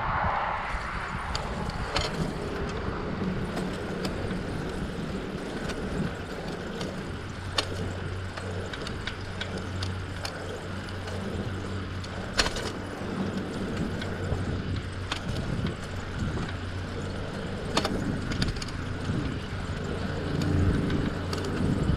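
Bicycle riding noise: a steady rolling rumble with a low hum, broken by a few sharp clicks or rattles from the bike.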